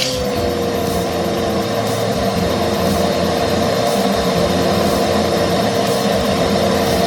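Kärcher WD2 wet and dry vacuum cleaner's 1000 W motor running steadily with a high whine and rushing air; the whine drops slightly in pitch just after the start, then holds.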